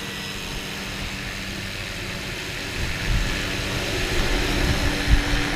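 Helicopter's engine and rotor running close by, a steady drone that grows louder about three seconds in as it lifts off the rock.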